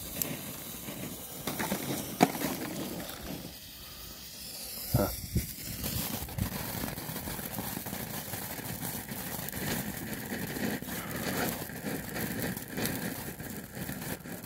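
Firework ground fountains and Bengal fire burning on the pavement with a steady hiss and crackle, with a couple of sharp pops about two and five seconds in.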